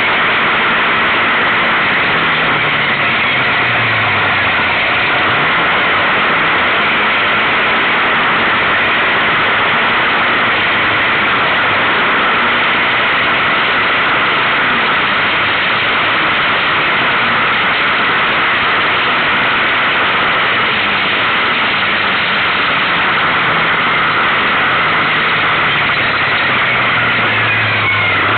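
Kawasaki KFX700 quad's V-twin engine running under way, its pitch rising and falling with the throttle, over a loud, steady rush of noise.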